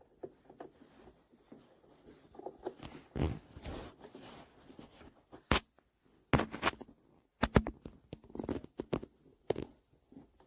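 Hands handling things at close range: scattered sharp clicks and knocks with short bursts of rustling, the sharpest clicks clustered a little past the middle.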